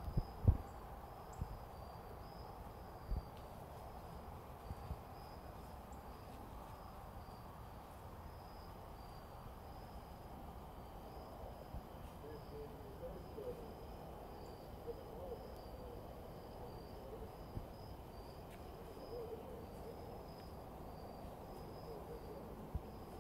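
Insects chirping steadily in a high-pitched pulsing drone, with an owl hooting in a series of low calls through the middle. A couple of dull thumps sound in the first few seconds.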